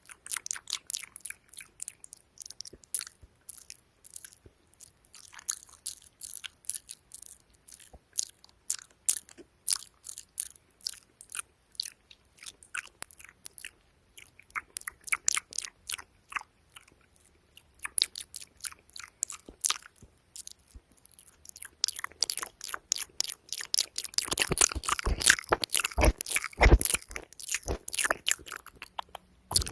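Close-miked ASMR mouth sounds: quick wet clicks and pops of tongue and lips in an uneven stream, growing denser and louder for a few seconds near the end.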